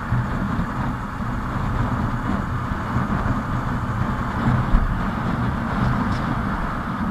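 Hero Super Splendor motorcycle's single-cylinder engine running steadily at cruising speed, mixed with wind noise over the helmet-mounted microphone. A brief low bump comes about five seconds in.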